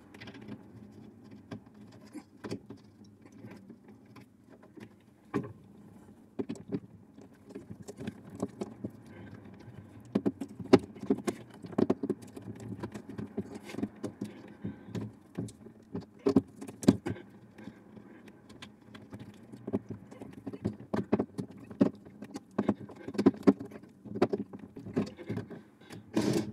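Irregular small clicks, taps and scrapes of hands slotting a wooden door guide into place and driving slotted screws into it with a screwdriver.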